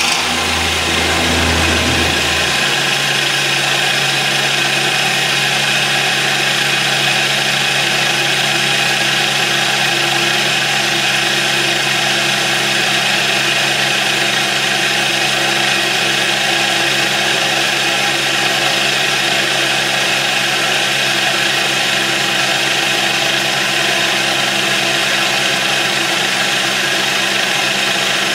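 Small homemade electric motor, a steel disc rotor between two coil electromagnets fed from a 6 V transformer, running steadily with a hum and a strong hiss. About two seconds in, a deep hum cuts out and a steady, somewhat higher hum carries on.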